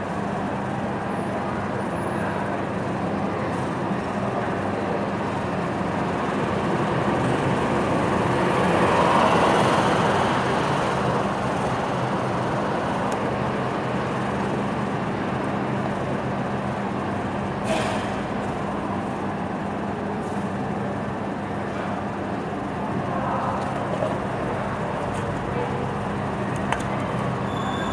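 Diesel bus engines running at a bus interchange, a steady low hum, with a louder swell about nine seconds in as a bus moves past and a sharp click about eighteen seconds in.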